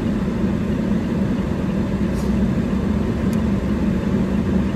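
A steady low engine rumble with a constant hum.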